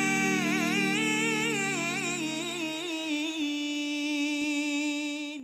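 Sung Arabic closing supplication for the Quran: a voice with ornamented, wavering pitch over a low held drone. The drone drops out about halfway through, and the voice settles on one long held note that cuts off abruptly at the end.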